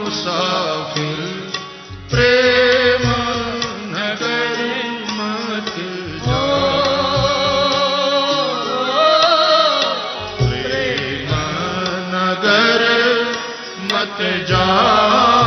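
Devotional Hindi bhajan: a male voice singing long, wavering held notes over instrumental accompaniment, with regular drum strokes underneath.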